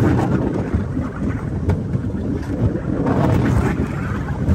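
Bamboo train (norry) running along the rails: a steady low rumble with wind buffeting the microphone and an occasional sharp clack.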